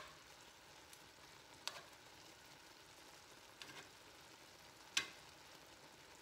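Steak fajita meat with peppers and onions sizzling faintly in a cast-iron skillet, stirred with metal tongs that click sharply against the pan a few times, loudest near the end.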